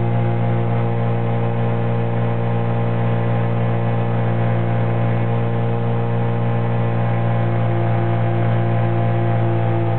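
Searey light amphibian's pusher engine and propeller droning steadily at cruise, heard from inside the cockpit, a constant low hum with a faint regular beat in it.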